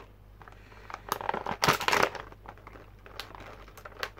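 Clear plastic packaging crinkling as it is handled and pulled apart. The rustle is loudest in a burst about a second in, followed by scattered sharp clicks and crackles.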